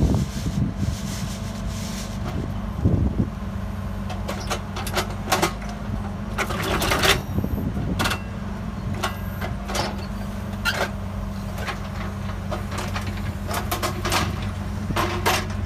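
Diesel engine of a Volvo wheeled road-rail excavator running steadily, with many irregular sharp metallic clicks and clanks over it from about four seconds in as the machine handles rail.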